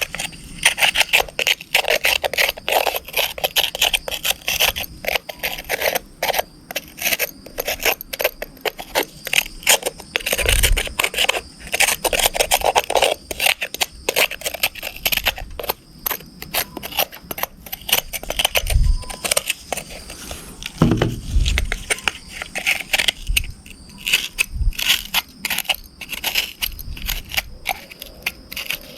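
Mud being scraped and scrubbed off a muddy RC car in quick, repeated scratchy strokes, with a few dull knocks along the way.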